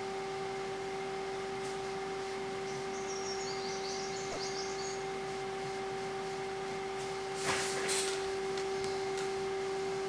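Steady electrical hum at one fixed pitch with fainter higher overtones, over faint hiss. Two soft brief rustles come about seven and a half seconds in.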